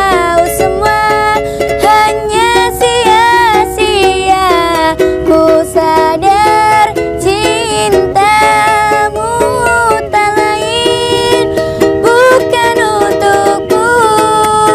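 A song: a sung melody over plucked string accompaniment.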